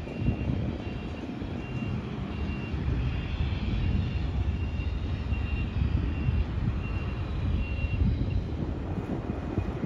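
A vehicle's reversing alarm beeping at one steady high pitch, about two beeps a second, stopping about eight seconds in, over a continuous low rumble.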